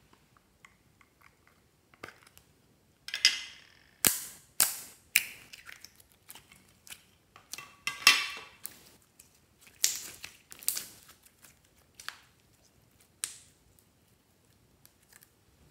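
Thick green slime being squeezed and stretched by hand, giving loud sharp pops and crackles at irregular intervals as air trapped in it bursts. The pops are loudest between about three and eleven seconds in.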